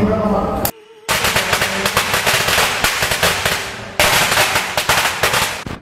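A string of red firecrackers going off inside a metal burning bin: dense, rapid crackling starting about a second in.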